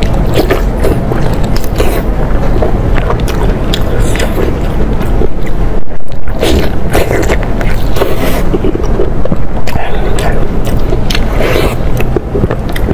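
Close-miked eating: a person biting and chewing braised pork, with many short wet mouth clicks over a constant low rumble. There is a brief break about six seconds in.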